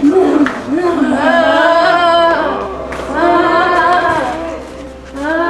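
Voices singing long held notes in two phrases, with a brief dip between them about two and a half seconds in, fading toward the end.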